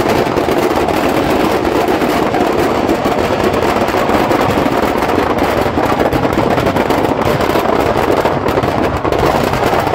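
Firecrackers in a burning Ravan effigy going off in a rapid, continuous crackle of bangs.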